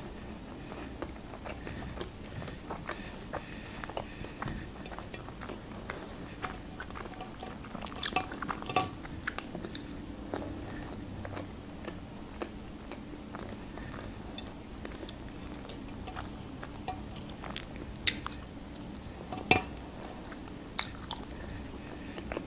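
A person chewing chicken nuggets: soft mouth sounds with many small scattered clicks, and a few sharper clicks about eight seconds in and again near the end.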